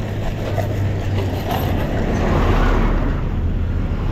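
Steady low rumbling noise of riding a mountain bike on an unpaved road: wind on the microphone and tyres rolling over the rough surface, swelling a little midway.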